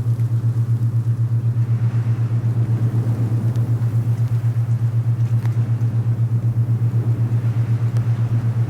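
Alpha binaural beat: a steady low hum that pulses rapidly and evenly, several times a second, laid over a soft rushing of wind.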